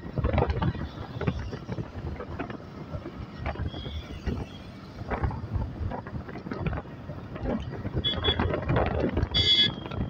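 Busy road traffic going past, motorcycles, cars and auto-rickshaws, with uneven rumbling and gusting on the microphone. There is a brief high-pitched beep near the end.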